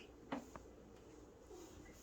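Two faint short taps about a quarter second apart, a third of a second in, in an otherwise quiet room.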